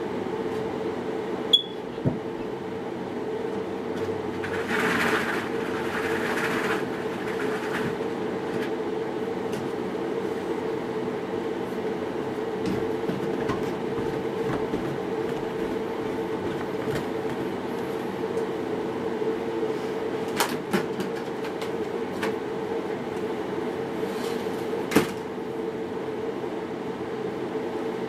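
A steady mechanical hum, with a few sharp knocks and clicks scattered through it.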